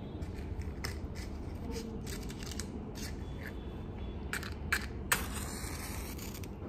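Faint scattered clicks and light taps of small objects being handled, over a low steady hum.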